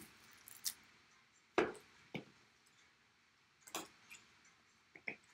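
Plastic shrink wrap being torn and pulled off a trading card box, giving scattered crinkles and light taps, the loudest about a second and a half in.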